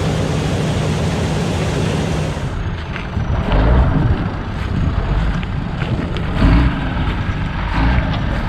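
A combine harvester's engine runs with a steady hum. About two and a half seconds in, the sound changes abruptly to a duller machine rumble with wind-like noise and a few heavy low thumps.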